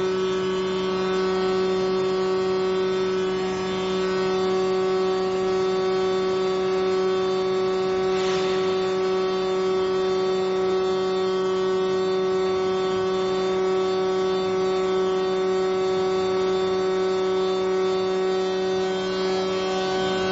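Steady electrical hum from an induction melting furnace's power supply cabinet, a low drone with a stack of even overtones that holds unchanged throughout.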